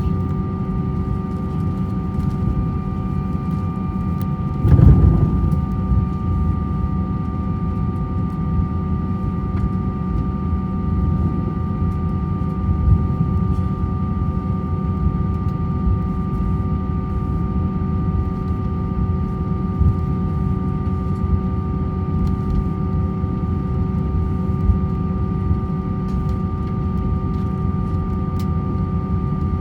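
Cabin noise of an Airbus A321-200 taxiing: a steady low rumble with several constant hums, and one louder bump about five seconds in.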